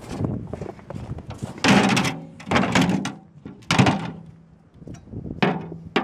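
Scrap metal clanking as pieces are handled and dropped: about four loud knocks, each with a short metallic ring.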